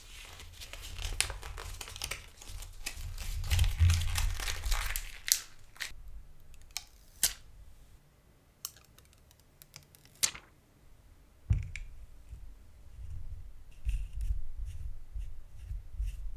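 Hands handling a small folded paper manual, with crinkling and rustling for the first five seconds. Then come scattered sharp clicks and a knock as a vape box mod is handled, and low bumps near the end as the rebuildable dripping atomizer is set onto the mod.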